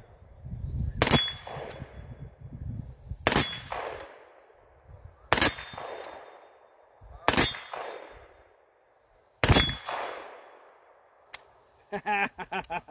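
Five shots from a Chiappa 1892 lever-action carbine in .44-40, about two seconds apart, each followed by a short ringing clang of a steel plate target being hit. A small metallic click comes near the end.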